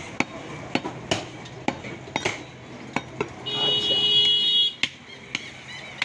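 Cleaver chopping beef on a wooden stump chopping block, with sharp knocks every half second or so. About three and a half seconds in, a shrill steady buzzing tone sounds for just over a second, louder than the chops.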